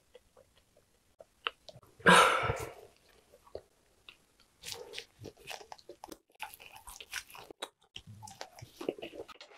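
Close-miked eating sounds: a single loud, breathy sound about two seconds in, then from the middle on a run of small wet clicks and chews as grilled lamb is bitten off a skewer and chewed.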